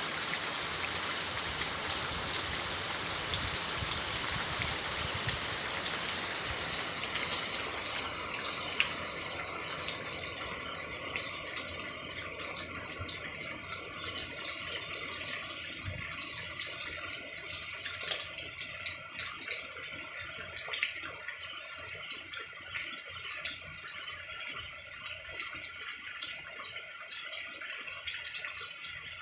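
Rain falling steadily, heavier at first and easing after about six seconds into lighter rain with scattered drops and drips.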